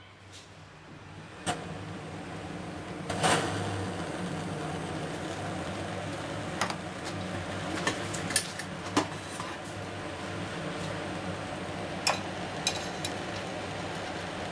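A BRS-3000T titanium canister stove burning with a steady rush of gas. It grows louder over the first couple of seconds, then holds steady. Scattered clicks and knocks of handling cut through it, the loudest about three seconds in.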